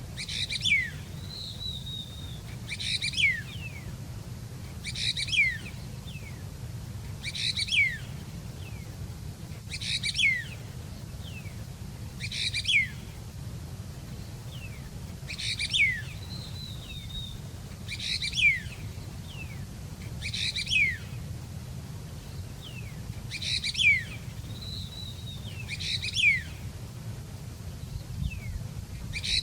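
A songbird singing a short chirping phrase over and over, about once every two and a half seconds, with thin downward-gliding whistles between the phrases. A steady low hum runs underneath.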